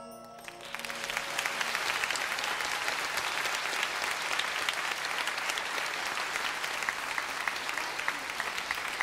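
The song's last note fades out, then a studio audience starts applauding about a second in and keeps up steady clapping.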